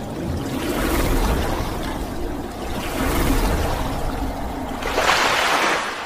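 Rushing, splashing water sound effects of an animated logo intro, swelling three times with the loudest splash near the end, then fading away.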